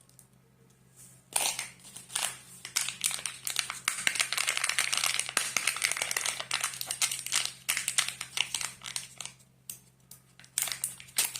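Wrapper of a chocolate surprise egg crinkling and tearing as it is unwrapped by hand. There are several seconds of dense crackling after a quiet start, a short pause, then more crinkling near the end.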